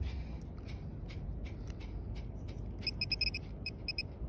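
Hand scratching through wet sand with small clicky scrapes, then from about three seconds in an XP MI-4 metal-detecting pinpointer beeps rapidly, about six short high beeps a second in two runs: the pinpointer is sounding on a metal target in the sand.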